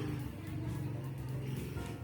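Background music with held low notes.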